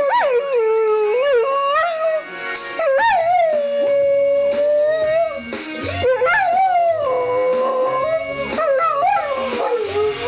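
A dog howling along to a recorded pop song, in long wavering howls that slide up and down in pitch, some held for a second or two. The song plays behind the howls.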